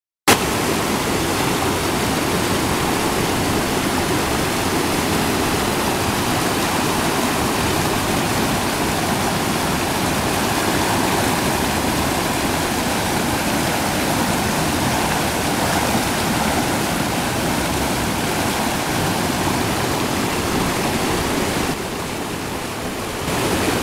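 River water rushing over rocks in whitewater rapids: a loud, steady rush that starts abruptly and dips a little near the end.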